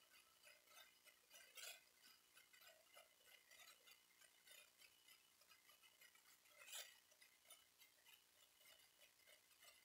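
Near silence with faint, scattered short clicks, and two slightly louder clicks about one and a half and seven seconds in.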